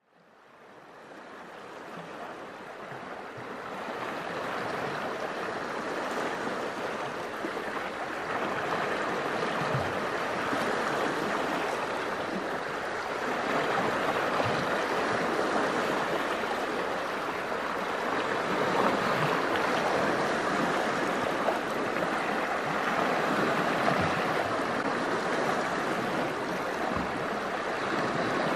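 Small lake waves washing in over flat sandstone ledges: a steady rush and splash of water, with now and then a low thump. It fades in over the first few seconds.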